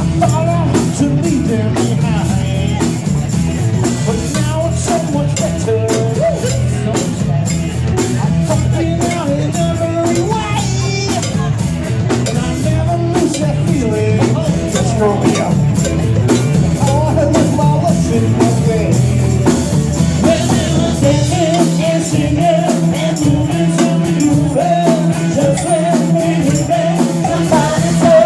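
Rock band playing with a singer, electric guitar and drum kit; about two-thirds of the way in the bass turns to short, separated notes.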